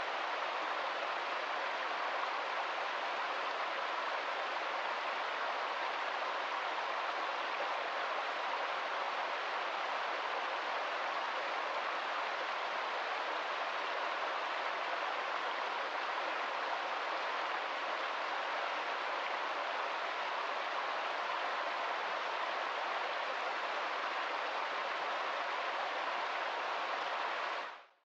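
Small stream running steadily over rocks in a continuous rush of water, fading out near the end.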